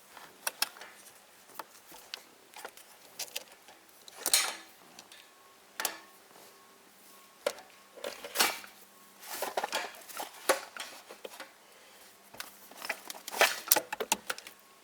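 Irregular clicks, taps and short rattles of hands handling plastic and metal parts while shifter cables are fed through a car's interior, with louder clusters of clatter about four, eight and thirteen seconds in.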